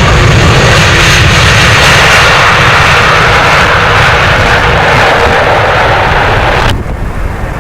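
Jet airliner passing close by, its engines making a loud, steady rushing noise with a deep rumble underneath. The sound cuts off suddenly about a second before the end, leaving wind buffeting the microphone.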